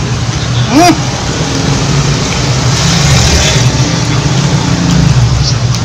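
Road traffic: a motor vehicle engine running close by, swelling and easing as it passes, with a brief voiced sound that rises and falls in pitch about a second in.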